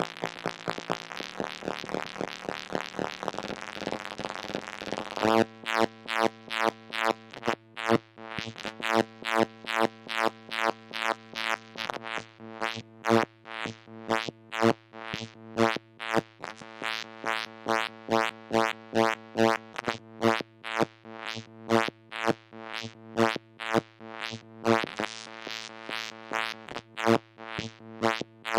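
Moog Mother-32 analog synthesizer modulated by a Comdyna GP-6 analog computer solving the Lorenz chaos equations. It starts as a dense buzzing texture; about five seconds in it switches to one low pitched note struck in irregularly spaced pulses, each bright at first and then dying away.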